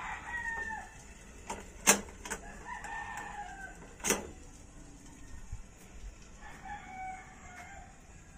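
Roosters crowing, three crows in all, with two sharp clanks from the enamel kettle being handled on the gas stove, the first about two seconds in being the loudest.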